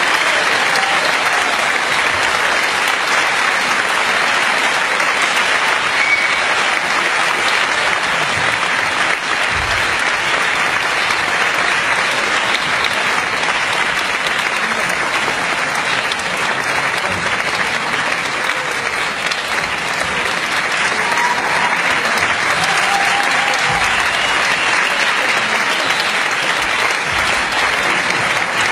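Audience clapping steadily in one long, unbroken round of applause.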